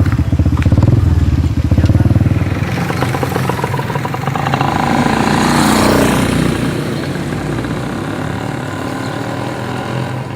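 A motor vehicle engine, motorcycle-like, running with a fast even beat; its pitch shifts around the middle and it fades near the end.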